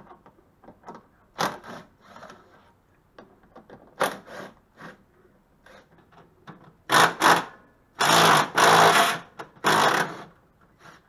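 Makita cordless driver with a socket extension spinning bolts out of the van's front end. It runs in a series of short bursts, the longest just over a second near the end.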